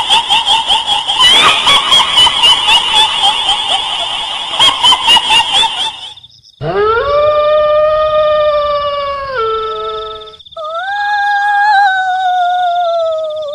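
Spooky 'ghost sound' effects. The first six seconds are a shrill, rapidly pulsing chatter or cackle. Two long howls follow: the first rises and then holds steady, the second slides slowly down in pitch. A thin steady high whine runs underneath.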